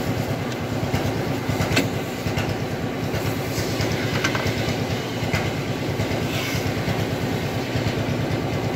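An engine idling with a fast, even rhythmic clatter, with a few sharp clicks over it.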